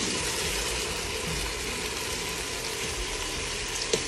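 Lamb pieces and onions frying in oil in a pot: a steady sizzling hiss, with a short click near the end.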